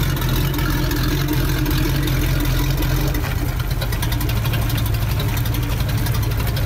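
Sterndrive boat engine idling steadily while run out of the water on a garden-hose flush attachment, with its exhaust and cooling water spraying out around the propeller. The test run shows the water pump working and water flowing well.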